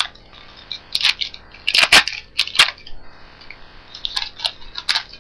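A baseball card pack wrapper being torn open, crinkling and crackling in irregular snaps, the loudest about two seconds in.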